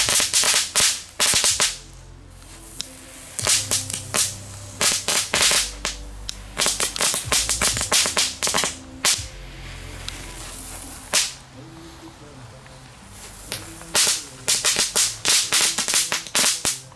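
NICO 'Crack Crack' Category 1 Blitzcracker firecrackers going off in several volleys of rapid, sharp cracks, with brief lulls between the volleys.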